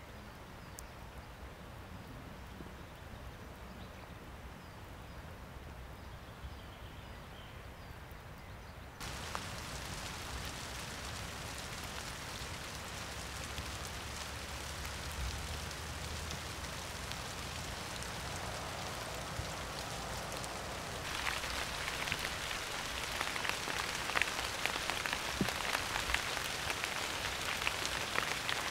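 Steady rain falling, heard as an even hiss. It jumps suddenly louder about a third of the way in, and again about two-thirds in, where individual drops can be heard ticking.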